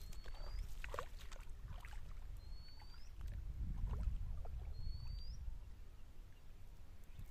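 Light splashing and sloshing of shallow water as a man wades and handles a cast net, over a low rumble. A bird gives three short rising whistles, about two and a half seconds apart.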